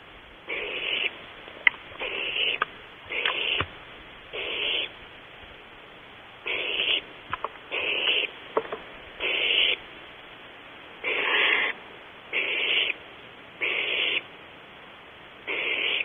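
Barn owl nestlings giving hissing begging calls: short, harsh bursts about half a second long, repeated roughly once a second, with a few sharp clicks in between.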